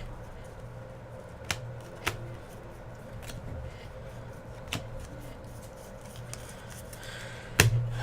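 Baseball cards and packs being handled and shuffled together on a table, with a few short sharp clicks and taps spread through, the loudest near the end, over a steady low hum.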